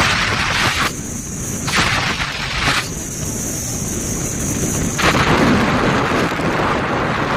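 Stormy wind buffeting the microphone: a loud, constant rumble with gusts of rushing hiss that come and go every second or two.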